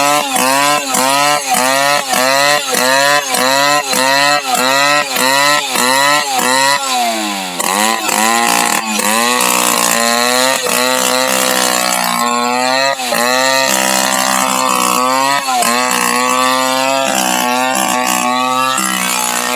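Chainsaw engine running hard, its pitch swelling up and down in quick regular surges for about seven seconds, then held longer with slower rises and falls.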